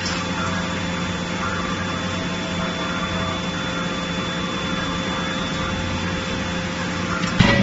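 Steady hum of forging-line machinery running, then one heavy blow of the 31.5 kJ CNC die-forging hammer striking the hot workpiece near the end.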